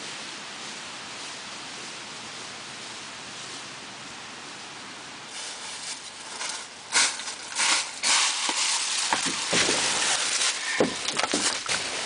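Dry fallen leaves crunching and rustling under footsteps that come up close, starting faint about halfway through and growing loud and uneven. Before that, a steady hiss of wind.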